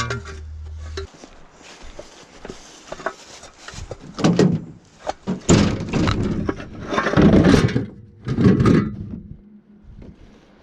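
Several heavy thuds and clatters as the folding bench seats are picked up, stacked and set down, in a few separate bursts.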